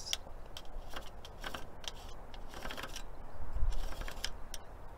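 Light rustling and scratching of cloth being handled and marked with a pencil, with scattered small clicks.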